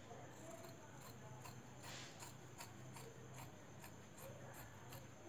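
Tailoring scissors cutting through lining cloth: a faint, quick run of snips, about four a second.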